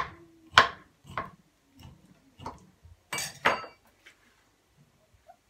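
A kitchen knife stabbing slits into a raw lamb shoulder on a ceramic plate, about five knocks of the blade roughly half a second apart. A little past three seconds in comes a louder, longer scraping clatter as the knife is laid down on the counter.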